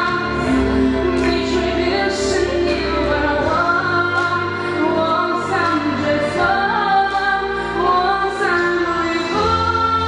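A young woman singing solo into a handheld microphone over instrumental accompaniment, holding long notes that slide between pitches.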